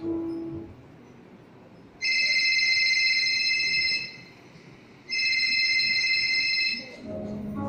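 Two long, high electronic tones, each held steady for about two seconds with a second's gap between, like an alarm ringing, played as a sound effect over loudspeakers. Background music cuts out just before and comes back in near the end.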